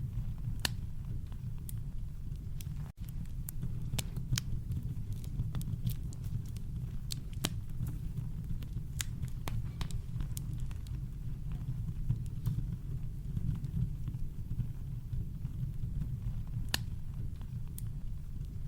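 Campfire crackling: scattered sharp pops and snaps from burning wood over a steady, deep brown-noise rumble, with a brief dropout about three seconds in.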